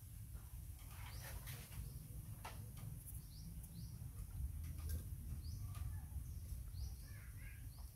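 Outdoor garden ambience: a small bird giving short high chirps, mostly in pairs, repeated every second or so, over a steady low background rumble.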